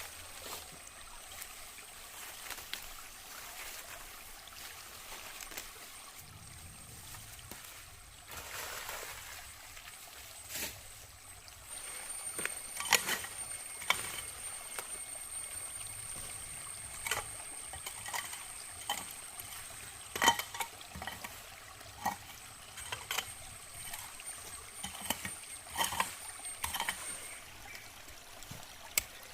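Water trickling and pouring, with scattered sharp clinks and knocks, over a steady high-pitched whine.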